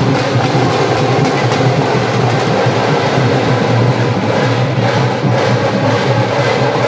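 Dhol drums beaten with sticks in an unbroken, loud groove, the dhol-tasha drumming of a baraat.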